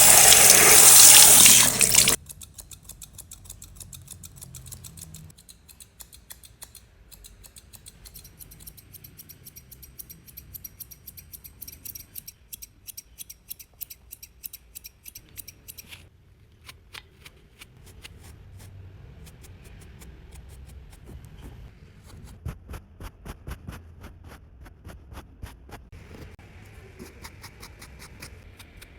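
Water from a tap gushes loudly for about two seconds, then stops abruptly. A long series of quick, sharp snips follows: hairdressing scissors cutting hair, sometimes several snips a second.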